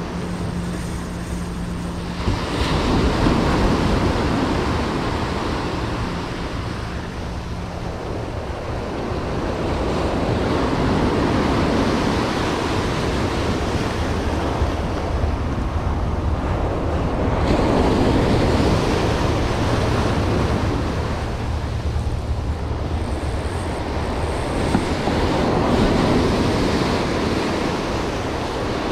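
Ocean surf breaking and washing over jetty rocks, the rush of water swelling and easing several times as each wave comes in.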